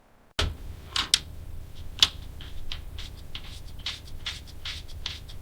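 Small objects being handled: light clicks, taps and scrapes over a low steady hum that starts just after the beginning.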